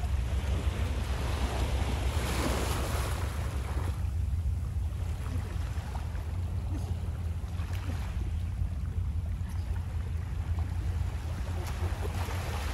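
Small waves washing onto a sandy beach, the surf swelling about two seconds in and then easing, over a steady low rumble of wind on the microphone.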